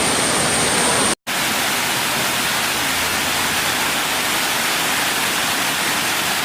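Rushing water of a small waterfall, a steady hiss with no let-up, broken by a short dead gap about a second in where the recording cuts.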